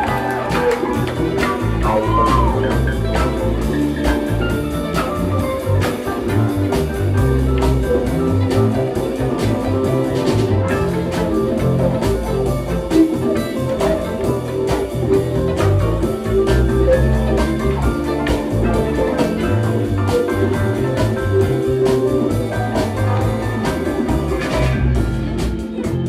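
Live rock band playing: electric guitar lines over bass guitar and drums keeping a steady beat.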